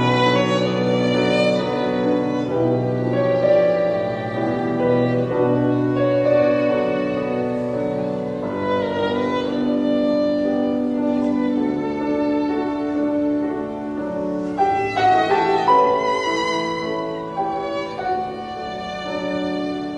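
Background instrumental music with sustained melodic notes.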